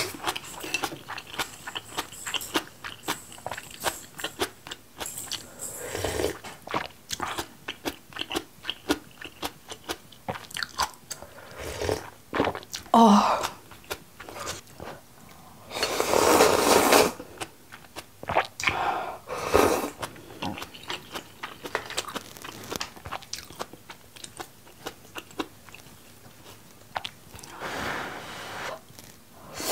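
A person chewing and crunching mouthfuls of food close to the microphone, a steady run of small wet clicks, with a long slurp about halfway through.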